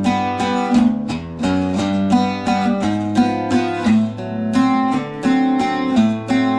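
Bajo sexto, a twelve-string Mexican bass guitar, played in a quick, even run of picked notes and chords over a walking bass line. It is freshly set up, with new strings, a new nut, lowered action and new tuning machines, and is in tune.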